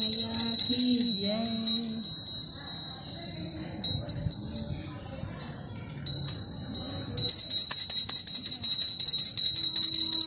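A small puja hand bell rung rapidly, a high, steady ringing tone made of quick strokes; it drops out in the middle and comes back louder from about seven seconds in. A voice sings over it for the first two seconds.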